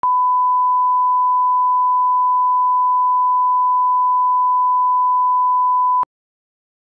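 Steady 1 kHz reference test tone accompanying broadcast colour bars, a single pure beep held for about six seconds and then cut off suddenly.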